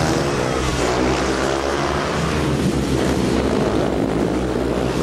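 Several speedway bikes racing, their 500 cc single-cylinder methanol engines making a loud, steady drone of overlapping engine notes that rise and fall a little in pitch.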